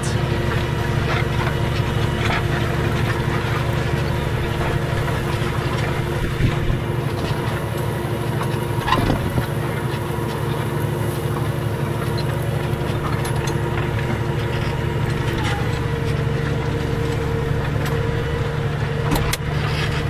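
Diesel tractor engine running steadily under load while pulling a multi-furrow reversible plough through the soil, with a couple of brief knocks.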